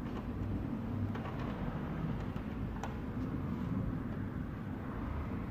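Steady low room rumble with a few light clicks and knocks from plastic car-stereo fascia and mounting-cage parts being handled on a workbench.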